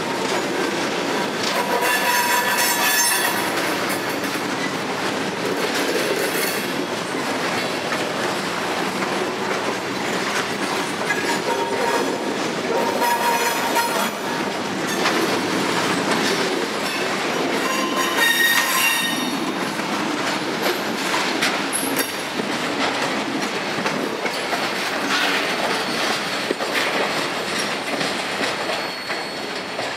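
Loaded log and lumber flatcars of a freight train rolling past, wheels clacking over the rail joints, with high-pitched wheel squeals rising out of the rumble several times.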